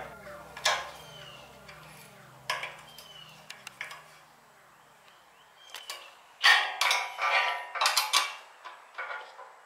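Small metal hand tools and fasteners clinking: an Allen key and an open-end wrench working against tiny bolts, washers and nuts as a fog light is fastened into a steel bumper. Scattered single clicks are followed by a busier run of louder clinks a few seconds before the end.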